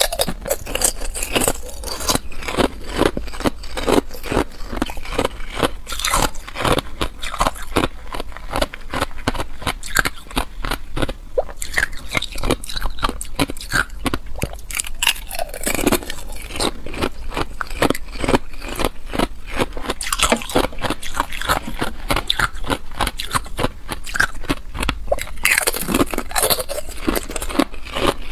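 A person chewing ice, close up: a continuous run of rapid crunches and crackles as the ice breaks between the teeth.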